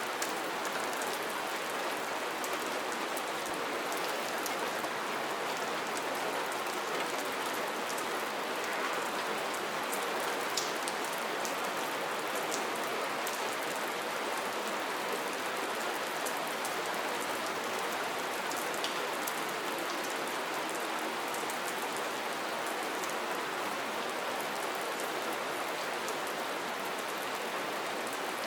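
Steady rain falling: an even hiss of rain with scattered sharper drop taps.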